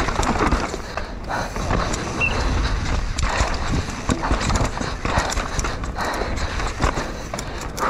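Downhill mountain bike descending a rough dirt trail at speed: wind buffeting the mounted action camera's microphone, tyres scrubbing the dirt, and frequent knocks and rattles from the bike over roots and bumps.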